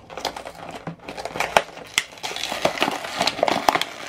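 Plastic toy packaging being crinkled and torn open by hand: a clear blister and printed plastic wrapper giving irregular crackles and snaps.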